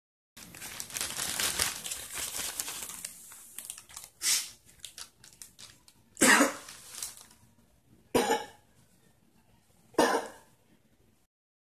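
A plastic bag crinkles as it is handled for about three seconds. Then a man coughs four times, about two seconds apart, the second cough the loudest.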